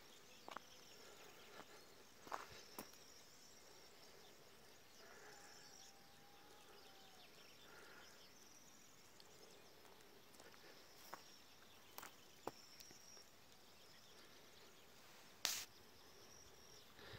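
Near silence: faint background hiss with a few scattered brief clicks, the loudest one near the end.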